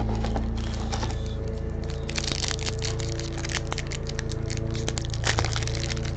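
Crinkling and crackling of a 2021 Panini Rookies & Stars trading-card pack wrapper as a pack is pulled from the retail box and handled, with many quick crackles from about two seconds in. Steady background music plays underneath.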